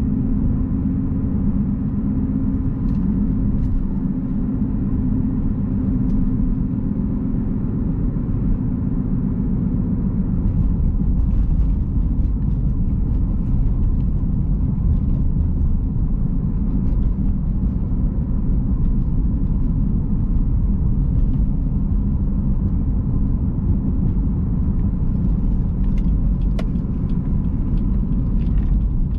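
Cabin sound of a 2011 Jeep Grand Cherokee V6 4x4 under way: a steady low rumble of engine and road noise, with a few faint ticks.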